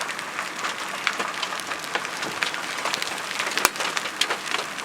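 Giant hailstones, over golf ball size, hitting the road in a steady irregular patter of sharp impacts over the hiss of the downpour, with one much louder crack about three and a half seconds in.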